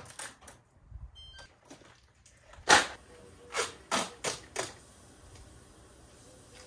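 Black poly drip-irrigation tubing being uncoiled and handled: a series of sharp plastic knocks and clatters, the loudest about two and a half seconds in and a quick run of several more a second later.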